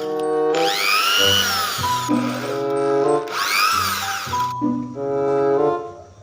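Electric drill motor whirring in two bursts, each rising and then falling in pitch, over a bouncy background melody.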